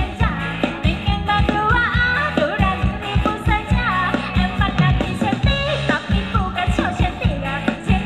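A live Thai dance band playing upbeat music through the PA, with a singer over a steady beat.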